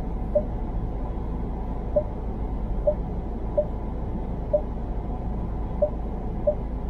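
Seven short single-pitched beeps at uneven intervals, key tones from a car's navigation touchscreen as an address is keyed in, over the steady low rumble of the car cabin.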